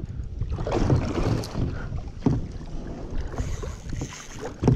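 Water splashing and sloshing around a fishing kayak, with wind rumbling on the microphone and two sharp knocks, about two seconds in and near the end.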